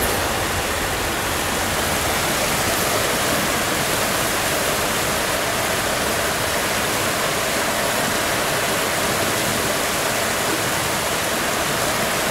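Shallow, rocky creek rushing over riffles: a steady, even rush of water.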